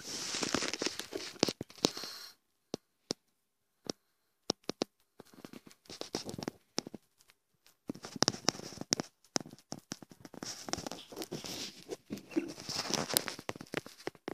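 Dry leaves of a potted plant rustling and crinkling in irregular bursts, with scattered sharp clicks, as a green iguana climbs and shifts about in it.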